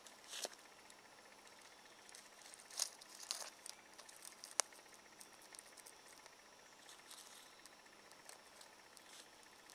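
Thin dry twigs being snapped and laid onto a small, newly lit kindling fire. There are a few sharp snaps about three to five seconds in, with light crackling and rustling in between.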